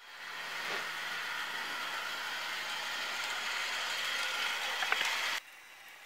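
OO-gauge model train, a Rosie locomotive hauling a Spiteful brake van, running past close by: an even whir of the loco's motor and gearing with the wheels clicking over the rail joints. It cuts off suddenly about five seconds in, leaving a faint hiss.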